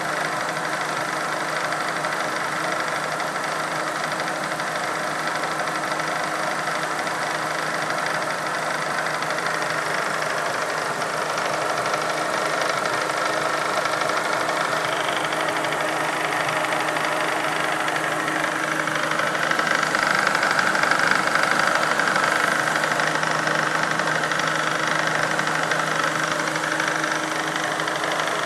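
Supercharged 2008 Mustang V6 engine idling with an odd knocking sound from its X-Charger supercharger unit. It gets a little louder about twenty seconds in.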